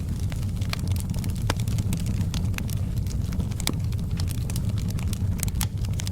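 Wood fire burning, with frequent sharp, irregular crackles and pops over a steady low rumble of the flames.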